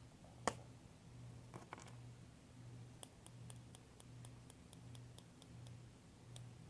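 Faint handling sounds: one sharp click, then a run of light, evenly spaced ticks, about four a second, over a faint low hum.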